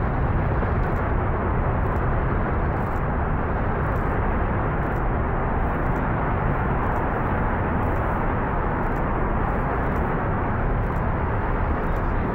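The four hydrogen-fuelled RS-25 engines of the SLS core stage firing together in a static test firing: a steady, continuous rumble that does not vary.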